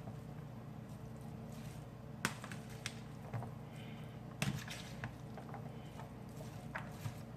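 Utensil knocking and scraping against a bowl while chunky chicken salad is tossed: scattered clicks and soft squishes, the loudest knock about four and a half seconds in.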